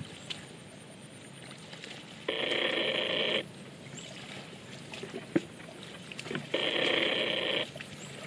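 Telephone ringing twice: two electronic rings of about a second each, roughly four seconds apart.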